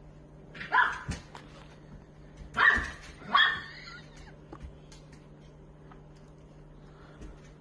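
A dog barking three times in short, sharp barks, the first about a second in and two more close together near the middle.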